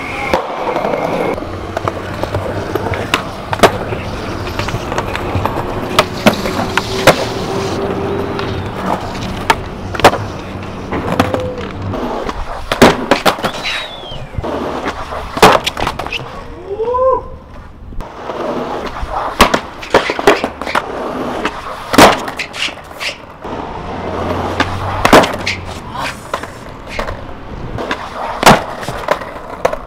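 Skateboard wheels rolling on street pavement, broken by many sharp pops of the tail and clacks of the board landing and hitting the ground, again and again through repeated trick attempts.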